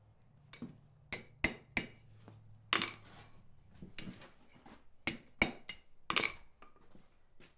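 Hand hammer striking a hot steel bar over the anvil horn to bend a chest-handle bale: a series of irregularly spaced, short metallic blows, with a faint low hum beneath.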